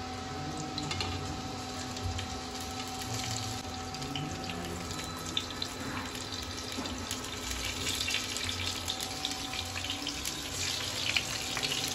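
Hot oil sizzling and crackling in a granite-coated kadai as turmeric-coated brinjal slices are laid in one by one. The crackle gets busier and a little louder in the last few seconds.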